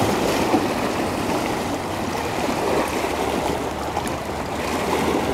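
Steady rush of river water lapping and splashing against the rocks of the bank.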